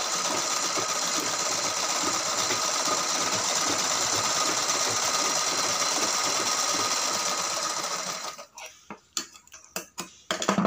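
Pico sewing machine running steadily as it stitches a rolled picot edge on saree fabric. It stops about eight seconds in, and a few short sharp clicks follow as scissors snip the thread.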